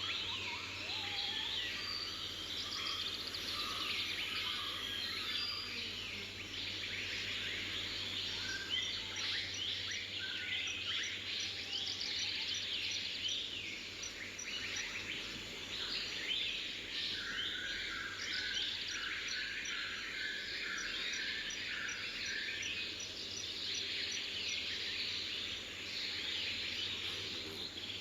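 A chorus of forest birds calling and singing, many chirps and trills overlapping, with one bird repeating a series of short notes about two-thirds of the way through. Faint, steady insect ticking runs underneath.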